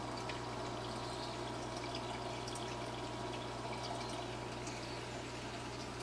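Reef aquarium's water circulation: a steady trickle of moving water with small drips and splashes, over a low steady hum.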